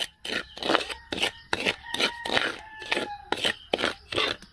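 Metal spatula scraping and stirring dry rice grains in a hot pan, about two to three scraping strokes a second: the rice is being dry-roasted until it browns and blackens for rice coffee.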